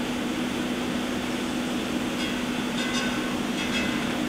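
Doosan Puma 240MC CNC turning center running with a steady hum. A few brief higher-pitched tones come in between about two and four seconds in.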